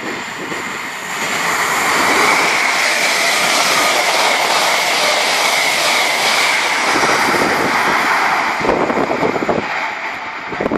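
East Coast express train passing through the station at speed without stopping. A rushing roar of wheels and air builds over the first two seconds and holds steady for several seconds. It then eases into an uneven rattle of wheels on rail as the rear of the train goes by.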